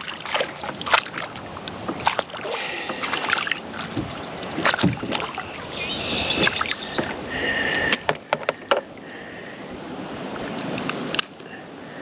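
Water splashing and sharp knocks against a fishing kayak as a hooked largemouth bass is fought alongside and landed, with irregular clicks and bumps throughout. The splashing is heaviest in the first two-thirds, and it quietens after about nine seconds.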